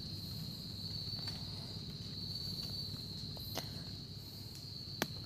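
A steady, high-pitched insect trill runs throughout, with a few faint rustles and one sharp click near the end.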